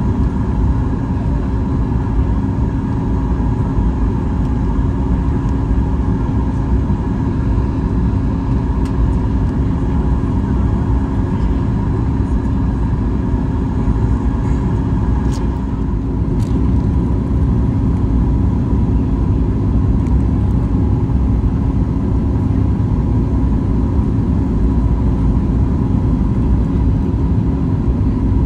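Steady cabin noise of a Boeing 737 MAX 8 on approach: a low rumble and rush from its CFM LEAP-1B engines and the airflow, with a constant hum of engine tones. A higher tone drops out about halfway through, followed by two faint clicks.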